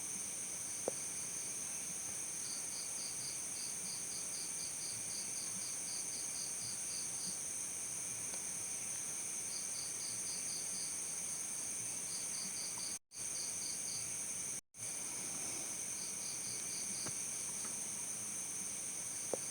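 Crickets chirping: a steady high-pitched ringing trill, with runs of quick pulsed chirps that come and go every few seconds. Two very brief gaps cut the sound about two-thirds of the way through.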